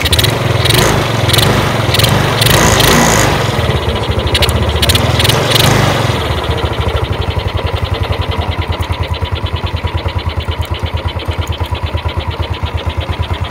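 Yamaha Mio scooter's single-cylinder four-stroke engine catching and running fast and unevenly for about six seconds, then settling into a steady idle with an even pulse. This is a test run straight after servicing its vacuum-type carburetor, with the vacuum chamber still open.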